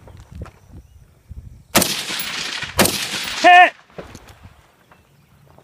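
Two rifle shots about a second apart, the first trailing off in a long rolling echo across the valley. Shortly after the second shot, a single short call of "Hit!" confirms a hit on the distant steel target.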